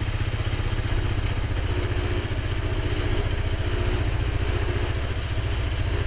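ATV engine running steadily under throttle as the vehicle drives forward, with a thin high whine over the engine note.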